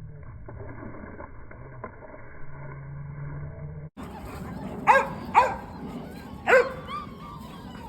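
A low, muffled rumble, then after a sudden cut three loud, sharp dog barks spaced about half a second to a second apart, followed by German Shepherd puppies whimpering and yipping with thin, high squeaks.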